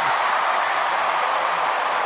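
Large studio audience applauding and cheering in a steady, dense wash.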